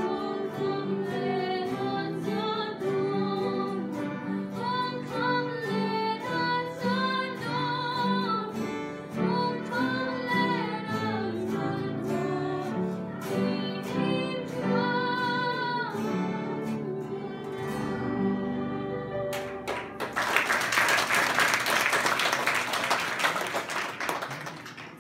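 Young women singing a Christmas hymn with vibrato over instrumental accompaniment of plucked or struck notes. The song ends about three-quarters of the way through, and loud applause follows, dying away at the end.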